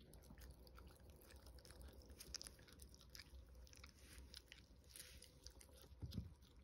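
Chihuahua puppy gnawing a dried meat chew stick: faint, irregular clicking bites of teeth on the stick. A brief low sound about six seconds in.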